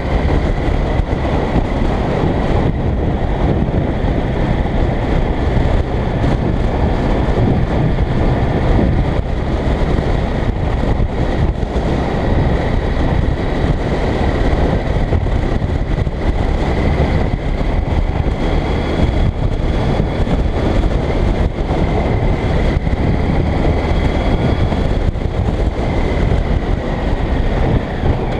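Yamaha FZ1 Fazer's inline-four engine running steadily at cruising speed, buried under heavy wind rush on the action camera's microphone. A faint steady high whine runs through it.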